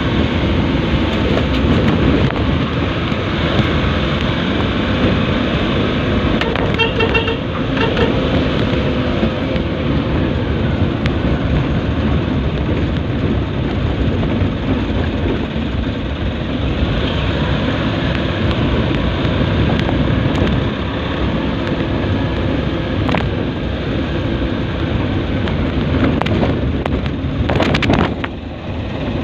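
Steady engine and road noise of a vehicle driving slowly, heard from inside its cab. A short horn toot sounds about seven seconds in.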